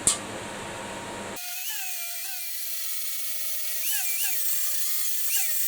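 Small high-speed electric power tool motor starting about a second in and running with a steady high-pitched whine, its pitch dipping briefly several times as it is put under load.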